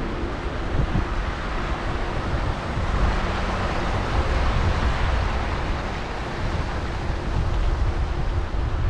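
Wind rushing over the microphone of a moving bike-mounted or handheld camera: a steady low rumble with a hiss that swells about three to six seconds in.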